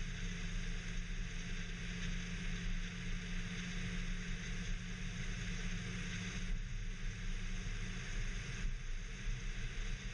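Mazdaspeed3 driving at a steady speed, heard from inside the cabin: a steady low engine drone under the hiss of tyre and road noise.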